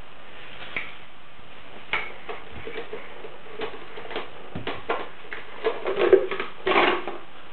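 Plastic toys knocking and clattering as a baby handles them. The knocks are scattered at first, come thicker from about halfway through, and are loudest in a clatter near the end as a plastic cup is tipped over.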